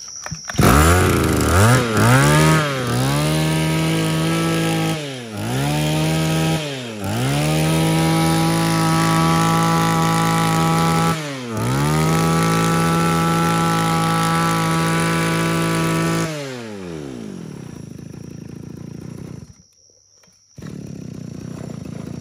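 Komatsu Zenoah BC2000 20cc two-stroke brush cutter engine catching suddenly, then revved up and down several times and held at high revs between blips. About sixteen seconds in it is switched off and winds down.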